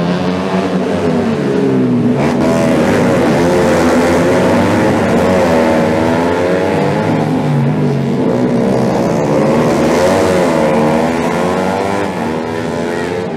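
Racing motorcycle engines revving hard, several at once, their pitch rising and falling as the bikes accelerate out of the corner and pass.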